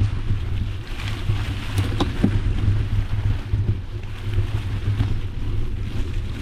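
Wind buffeting the microphone, a steady low rumble, with a few faint clicks about two seconds in.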